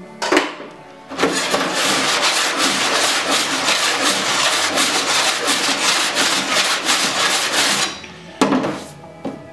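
Body file rasping rapidly back and forth across a bare steel car-door skin for about seven seconds: file-finishing over a heat-shrunk spot to show whether the low spot has come up level. A short sharp sound just after the start and another near the end.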